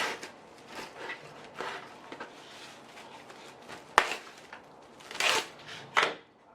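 Kitchen handling noises: scattered rustling with one sharp knock about four seconds in, then two short louder rustling bursts near the end.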